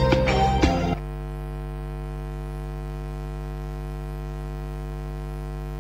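A short musical jingle cuts off about a second in, leaving a steady electrical mains hum with its overtones.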